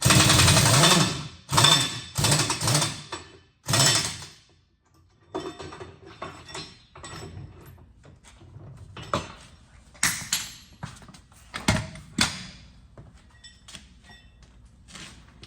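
Four short bursts of an impact wrench working on the tractor's wheel nuts, followed by scattered clunks and thunks of metal parts being handled.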